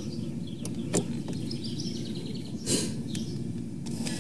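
Birds chirping over a steady low background noise, with a couple of light clicks, one about a second in and another near three seconds.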